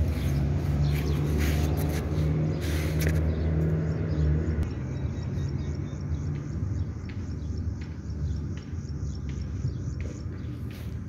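A low, steady motor rumble that eases off about four seconds in. Faint, repeated bird chirps can be heard above it after that.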